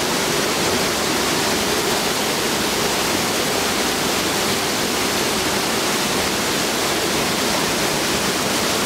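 Steady rush of river water pouring over a falls, an even hiss with no breaks.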